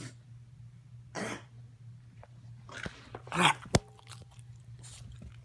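An English bulldog and a Boston terrier play-fighting, giving two short, noisy huffs, about a second in and just past three seconds. A sharp click follows just after the louder second huff.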